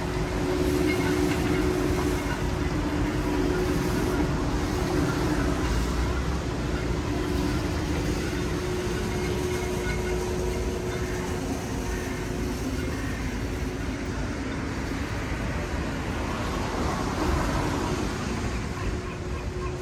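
Steady mechanical hum of a vehicle over city street noise.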